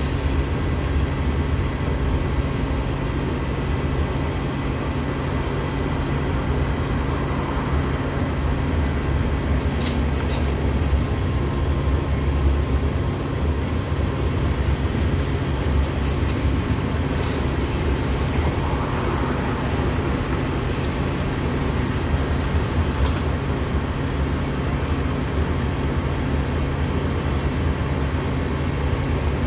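Train running, a steady low rumble and hum that stays even in level.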